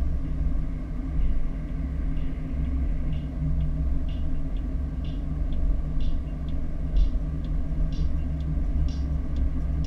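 An SUV driving on a road, heard from inside the cabin: a steady low rumble of engine and tyres. From about three seconds in, faint light ticks come about once a second.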